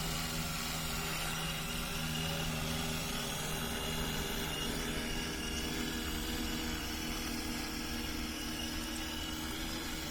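A 15-litre agricultural spraying drone's rotors humming steadily, the pitch shifting slightly about halfway through.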